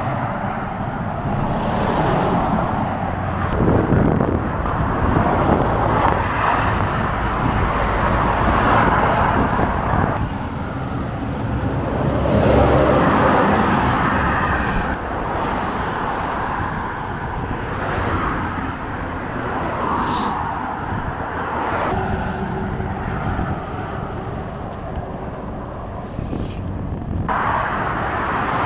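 Road traffic noise: a steady wash of passing cars on a busy road, swelling and fading every few seconds as vehicles go by.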